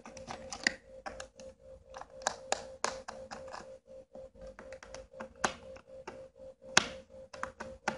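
Screwdriver turning out the screws on the base plate of a plastic-housed car tire inflator compressor, with the housing being handled: many small, irregular clicks and taps.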